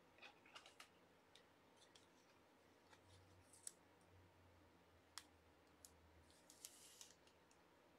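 Near silence with faint, scattered clicks and a brief soft rustle near the end: trading cards being handled and laid down on a table mat.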